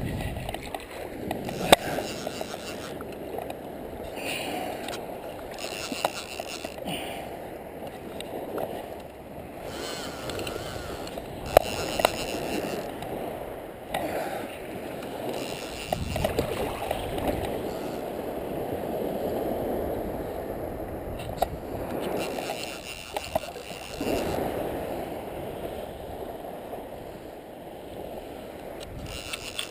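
Shallow water sloshing and splashing around a wading angler, with fabric rubbing against the camera and a few sharp knocks.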